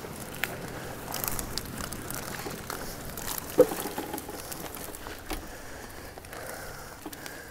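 Nylon mesh keepnet rustling and rubbing as it is gathered up by hand, with scattered small clicks and one louder knock about three and a half seconds in.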